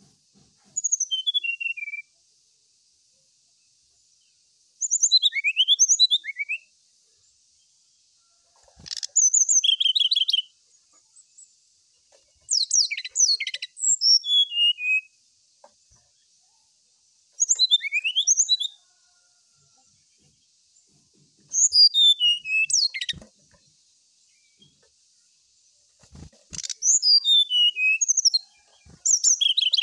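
Brown-chested jungle flycatcher singing: about eight short phrases of clear whistled notes, many sliding down in pitch, repeated every few seconds with pauses between.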